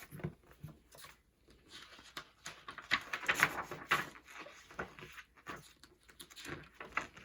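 Handling noise of a picture book being opened: paper rustling and light knocks, densest about three to four seconds in.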